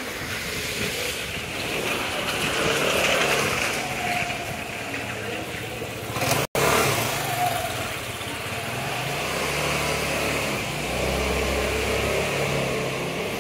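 Busy street ambience: voices of passers-by, with a motor vehicle engine running close by in the second half as a low hum. The sound cuts out for an instant about six and a half seconds in.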